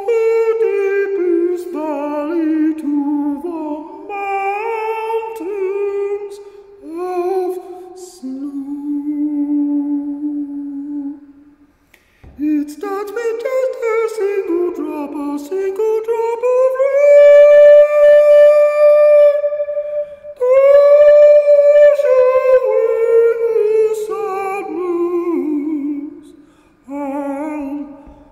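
A man singing wordlessly: a slow, humming melody of held and gliding notes. It breaks off briefly about twelve seconds in, then climbs to a long high note held for about four seconds before sliding back down.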